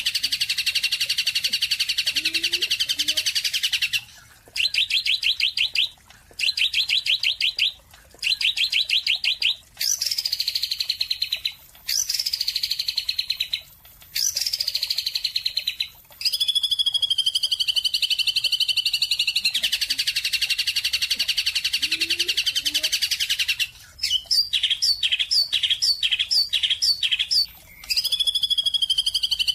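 Bird song in a string of loud, high-pitched phrases with short gaps between them. The phrases are fast trills, three downward-sweeping whistles in a row, long warbling runs, and a quick series of short evenly spaced notes about two a second.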